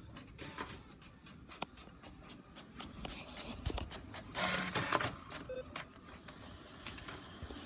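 Inkjet printer working, with scattered clicks and a low mechanical hum, and a louder rush of paper noise a little over four seconds in as printed sheets are handled.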